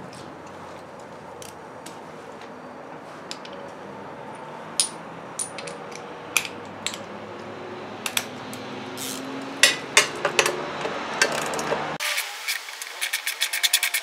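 Hand tools clinking and tapping on the scooter's metal exhaust fittings while the stock exhaust is being unbolted, single sharp clicks growing busier toward the end. Near the end a ratchet wrench clicks quickly and evenly as the nuts are worked.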